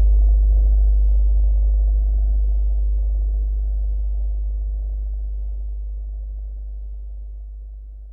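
Very deep, steady bass sine tone, a subwoofer test tone, slowly fading out.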